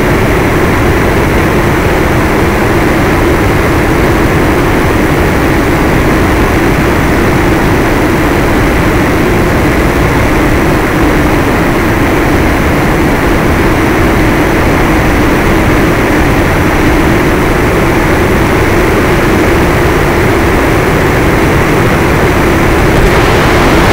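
Electric motor and propeller of a fixed-wing FPV model plane running steadily in flight, heard through the onboard camera's microphone along with wind rush. A hiss grows louder near the end.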